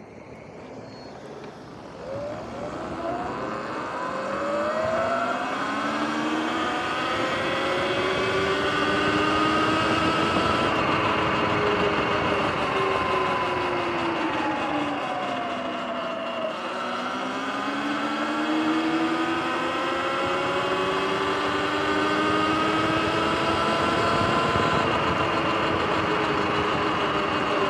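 Sur-Ron electric dirt bike pulling away from a stop: its motor and drive whine rises in pitch as it gathers speed, dips as it slows about halfway through, then rises again, over rushing wind and tyre noise.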